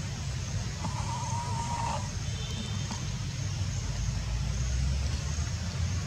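A steady low rumble, like a motor running. About a second in, a brief wavering high-pitched cry lasts a little over a second.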